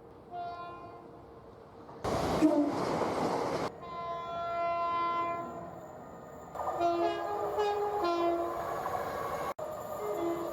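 Train horns sounding. A faint horn note comes first, then a loud rush of noise lasting under two seconds, then a long steady horn blast, then a two-tone horn giving short blasts on alternating high and low notes. An abrupt break near the end marks a cut between clips.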